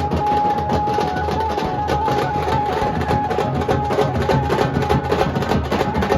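Nashik dhol group drumming: dhols and tasha played in a fast, dense, continuous rhythm. For about the first half a steady high tone is held over the drums.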